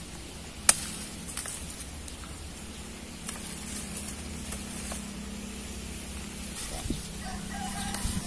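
Sharp snaps of cassava leaf stalks broken off the plant by hand: one loud snap about a second in, then several fainter ones, over a steady low hum. A chicken calls faintly near the end.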